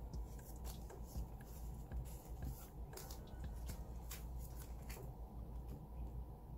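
Hands handling Australian polymer banknotes and a clear plastic binder pocket: soft crinkling and rustling with scattered small clicks.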